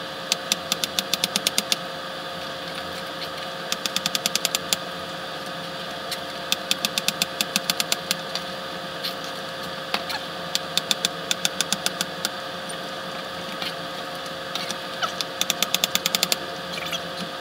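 Chef's knife chopping carrots on a cutting board, sped up, so the chops come as rapid clicking runs, about eight to ten a second, five times over. Under them, a steady hiss with a steady tone.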